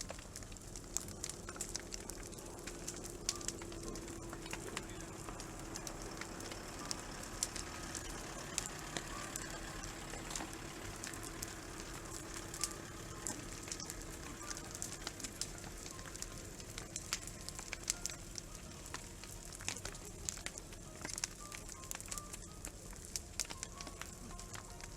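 Wood campfire burning, crackling with frequent sharp pops and snaps over a steady hiss of flame. A faint steady low hum runs underneath from about a second in.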